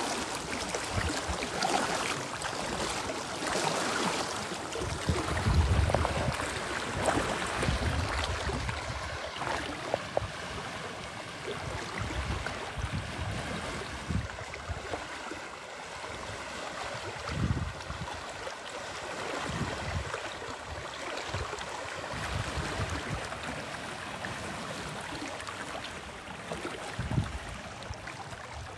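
Muddy river flowing in a steady rush, with splashing as elephants wade through the water. The rush is louder for the first ten seconds or so, and occasional low gusts of wind buffet the microphone.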